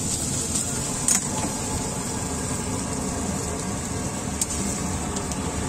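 Steady background noise of a street-food griddle stall: a continuous low rumble with a constant high hiss, broken by two short clicks about a second in and near the end.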